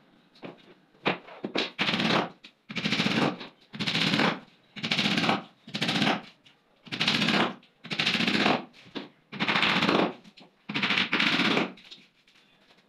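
About nine evenly paced scraping strokes of a hand tool worked against laminated particleboard, each lasting about half a second with short pauses between them, as in rasping or sanding a board.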